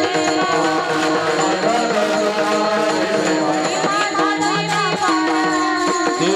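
Devotional kirtan music: a melody that bends and glides over a steady held drone, with light hand-drum percussion.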